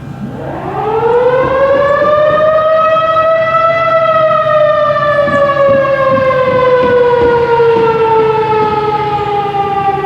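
Federal Signal 2001-130 DC outdoor warning siren winding up, rising in pitch for about four seconds, then slowly winding down for the rest of the time: one cycle of a siren test.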